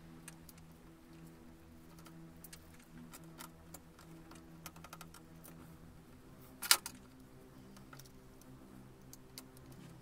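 Small clicks and taps of a precision screwdriver and tiny screws as the old CPU fan of an HP 250 G5 laptop is unscrewed and lifted out, with one sharper click about two-thirds of the way through. A faint steady hum runs underneath.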